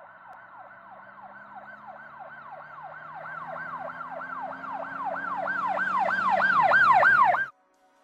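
Emergency vehicle siren in a fast yelp, sweeping up and down about four times a second over a low steady hum. It grows steadily louder as it approaches, then cuts off suddenly near the end.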